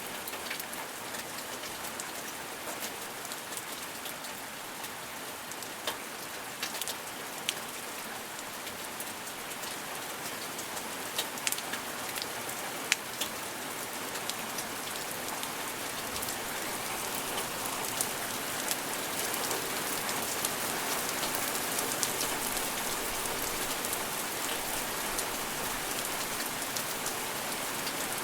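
Steady rain falling, with sharp ticks of single drops landing close by now and then. It grows slightly heavier through the second half.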